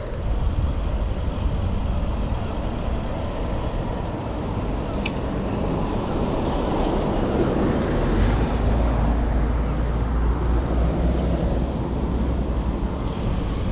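Wind rushing over an action camera's microphone on a moving bicycle, a steady noisy rumble that grows heavier in the lows about eight seconds in.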